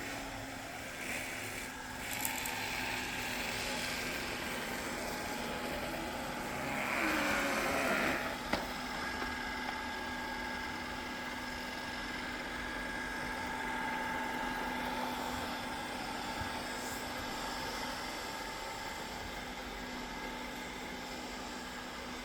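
Narwal Freo Z Ultra robot vacuum running, its suction fan and brushes giving a steady hum with a few steady tones. It swells to a louder rushing about seven seconds in, then gives a sharp click.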